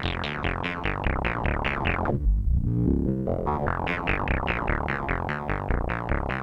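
Modular synth sequence played through the Neutron Sound Damnation Alley SSI2144 four-pole low-pass filter: a fast run of plucky notes, about seven a second, each opening bright and quickly dulling as the filter envelope closes. About two seconds in the filter shuts down to a dull, low rumble, then opens up again a second later.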